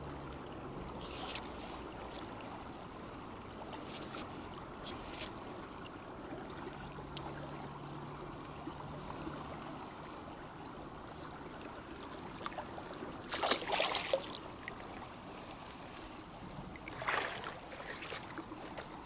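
Swollen river water rushing steadily past close by, with a few short louder rustling and splashing noises as a fish is hauled in on a hand line; the loudest comes about two-thirds of the way through and another a few seconds later.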